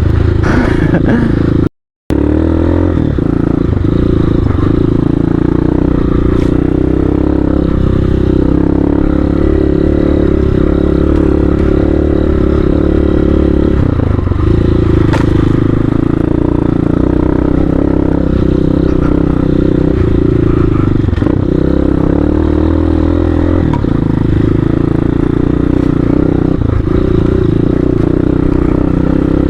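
Hawk 250 dual-sport motorcycle's single-cylinder engine running under way, with the engine note dipping and picking up again several times as the rider works the throttle and gears. The sound cuts out completely for a moment about two seconds in.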